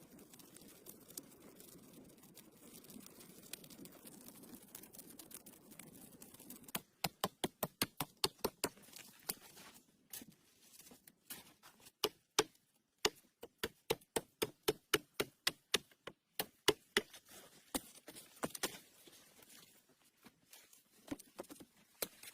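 Faint low hiss, then from about seven seconds in rapid runs of sharp knocks or taps, about four or five a second, with short pauses between runs and fewer knocks near the end.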